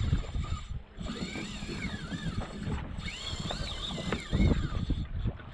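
Wind buffeting the microphone on an open boat, a gusting rumble that peaks about four seconds in, with high wavering whistling tones running over it.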